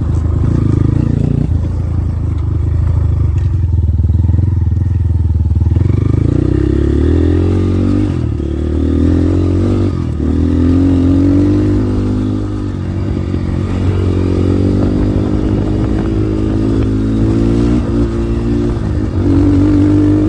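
GPX FSE 250E dual-sport motorcycle's single-cylinder engine running while riding, its note rising and dropping several times as the throttle and gears change.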